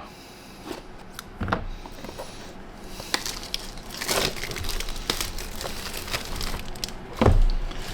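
Plastic wrapping on a trading card box being cut and torn open, crinkling and crackling irregularly, with a dull thump near the end.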